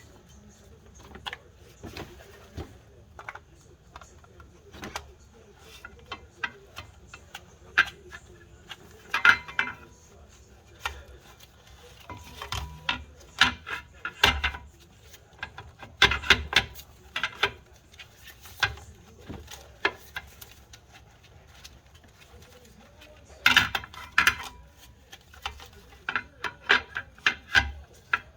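Irregular metal clinks, knocks and scraping as a clutch pressure plate and clutch disc are worked into place against the flywheel on a clutch alignment tool. There are louder clusters of clatter at several points.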